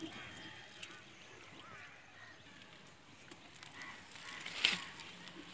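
Quiet ambience with faint distant calls, then a single sharp knock on the wooden boat about four and a half seconds in.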